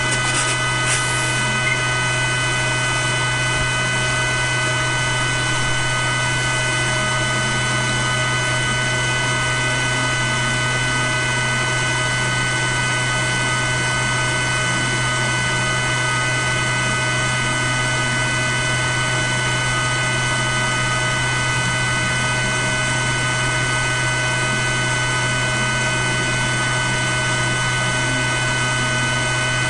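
Steady electric hum of an EMCEE 1140 Mark-X Micro-Sep fuel-test instrument while it runs its measurement of the test sample. It is a low, even drone with several thin high tones over it and no change throughout.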